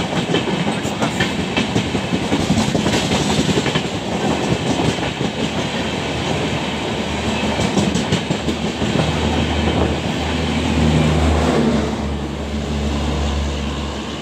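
LHB passenger coaches of an express train running past at speed: a steady rushing noise with rapid wheel clicks over the rail joints. In the last few seconds the clatter fades into a steadier low rumble.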